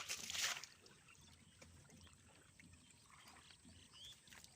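Water splashing loudly in the first half second as it is stirred by hand in shallow water, then faint lapping and small drips. A short high chirp comes near the end.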